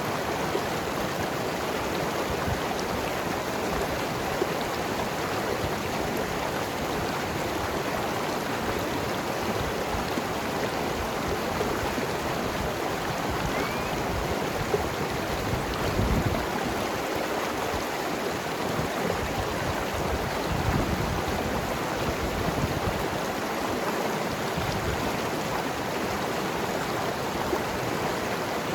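Mountain river flowing and gurgling over rocks, a steady rush of water with small surges now and then.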